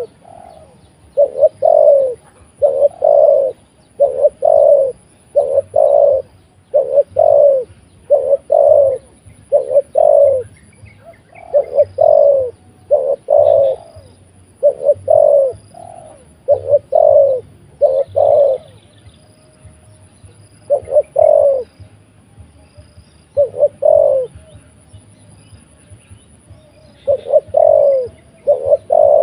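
Spotted dove cooing loudly and over and over, in phrases of two or three coos about every second and a half, with longer pauses in the last third.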